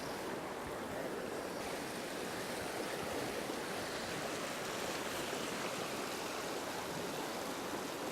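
Stream water running steadily, an even rushing sound.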